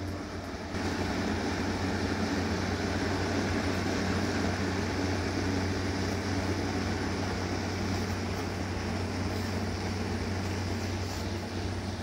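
Small 7.2-volt DC motor spinning a plastic fan blade in a cardboard housing: a steady whirring hum with rushing air.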